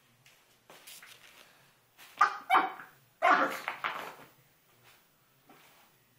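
Pomeranian puppy barking as it attacks a bath mat: two sharp barks a little after two seconds in, then a longer run of barking. The barks echo off the tiled walls of a small room.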